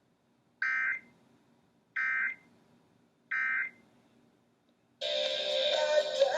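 Three short bursts of Emergency Alert System digital data tones, the warbling SAME end-of-message code that closes the alert, each under half a second and about a second and a half apart. About five seconds in, loud music starts.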